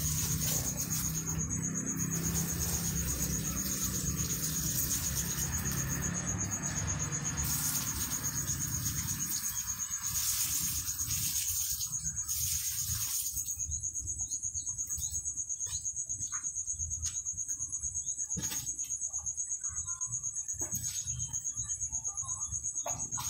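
Insects trilling: one continuous high-pitched, evenly pulsing trill, with a few faint clicks and rustles in the second half.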